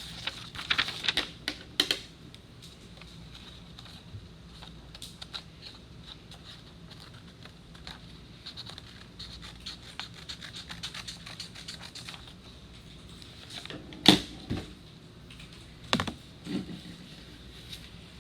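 Paper being scratched and rubbed against the edge of a tin can, a fingernail scoring a cutting line into it, with a fast patter of small scratchy clicks. There are a few sharp knocks about two-thirds of the way through and again near the end.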